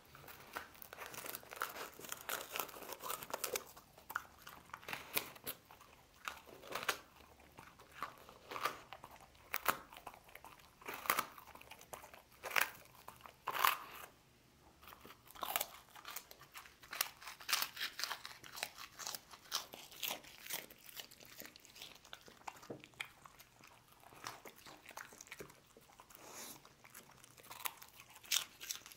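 A dog crunching and chewing puffed rice biscuit: a run of irregular crisp crunches, pausing briefly about halfway, then softer and sparser as it picks up the last crumbs.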